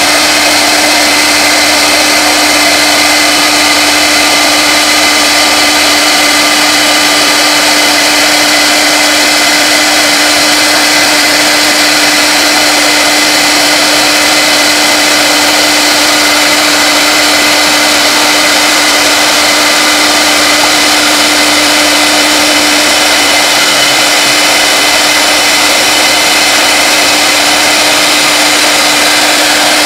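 CNC router spindle running at high speed with a steady whine while its bit mills acrylic sheet.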